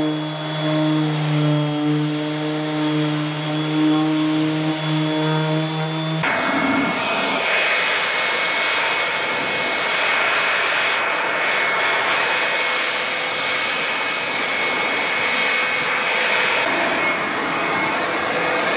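Electric belt sander running on a hardwood countertop, a steady motor hum with overtones. About six seconds in the sound changes abruptly to a steady rushing whoosh with a thin high whine as power tools keep working the top.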